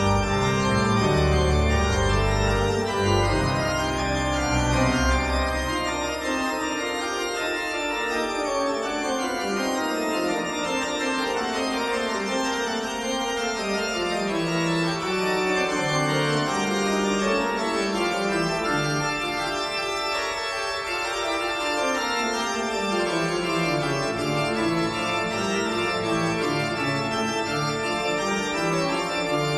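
Organ music of slow, held chords, with a deep bass line for the first few seconds.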